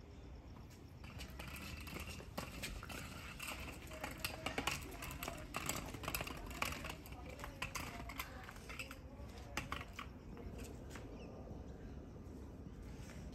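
Chalk scraping and clicking on brick paving in short irregular strokes, over a steady faint low rumble.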